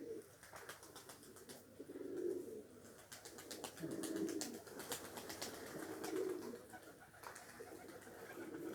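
Domestic pigeons cooing: low coos in four phrases about two seconds apart, with faint scattered ticks.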